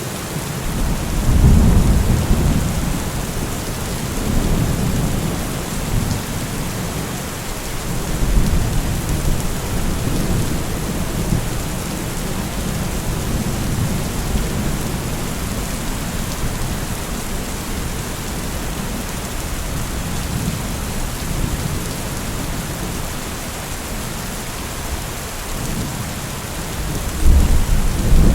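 Steady heavy rain falling as an even hiss, with low rumbles of thunder swelling about a second in and again near the end.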